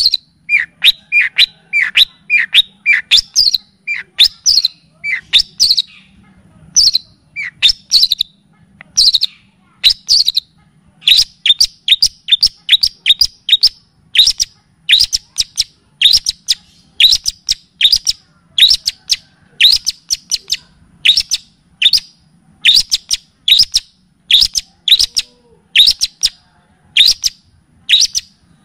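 A recorded songbird repeats short, rising whistled notes at about one and a half a second, each sweeping sharply upward. In the first few seconds the notes come faster and lower-pitched. A faint low hum runs underneath.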